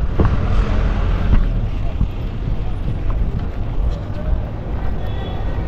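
Busy city street ambience: steady traffic rumble from buses, cars and motorbikes, with passersby's voices mixed in.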